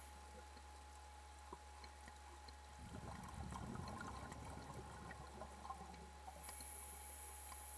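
Faint underwater ambience picked up by a submerged camera: water noise under a steady low hum and a thin steady whistle, with a soft swell of low sloshing and scattered clicks midway through and a very high faint whine near the end.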